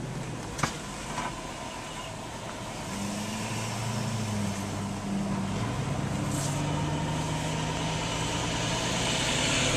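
A car's engine hum and tyre noise heard from inside the cabin while driving. The engine note rises about three seconds in and shifts again around six seconds. The tyre hiss on the wet road grows louder toward the end, and there are two light clicks in the first second and a half.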